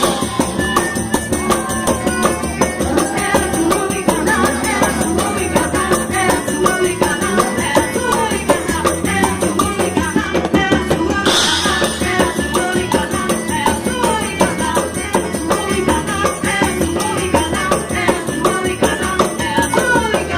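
Lively quadrilha dance music with a fast, steady rattling shaker-and-tambourine beat under a melody line.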